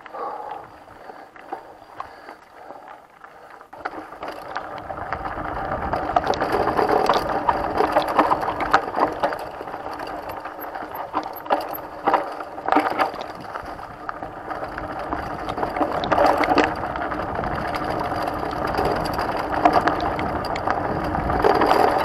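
Mountain bike ridden fast on a dirt forest trail: tyre noise with the bike rattling and clattering over roots and rough ground. It is fairly quiet for the first few seconds, then much louder and busier from about four seconds in.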